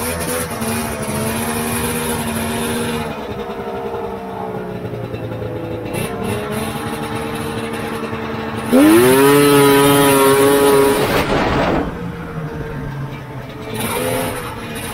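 Polaris Indy 650 snowmobile's three-cylinder two-stroke engine with triple expansion pipes, running at part throttle along the trail. About nine seconds in, a hard throttle hit sends the revs sweeping quickly up; the engine holds high and loud for a couple of seconds, then eases back. The owner calls the throttle response crisp, with zero bog, a sign of a spot-on carburettor tune.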